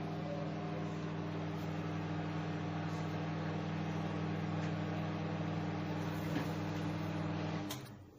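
Microwave oven running with a steady hum, then cutting off with a click near the end.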